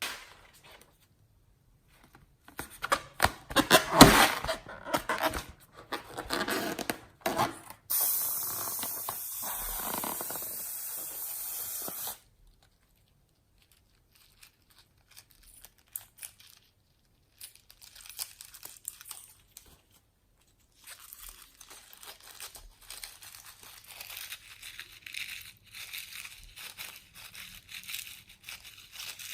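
Close crackling, tearing and crinkling noises of hands handling slime-making materials, loudest a few seconds in. Midway comes a steady hiss lasting about four seconds that stops suddenly, and after a pause fainter crinkling continues.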